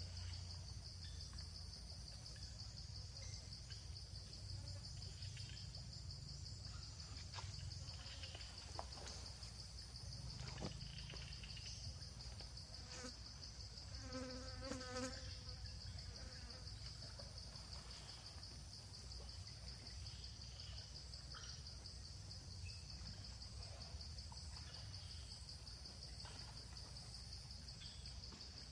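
A steady, high-pitched chorus of insects chirring over a low outdoor rumble, with a few faint clicks and one short pitched animal call about halfway through.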